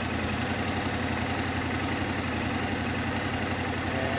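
2022 Yamaha R7's 689 cc parallel-twin engine idling steadily, warming up on fresh Amsoil Metric 10W-40 oil after an oil and filter change.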